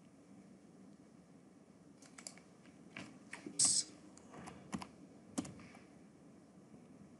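Computer keyboard keystrokes: about a dozen scattered taps starting about two seconds in, with one louder keypress in the middle, over a faint low hum.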